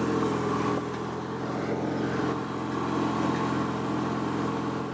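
Riding lawn mower's small engine running steadily under load while the mower is driven through snow.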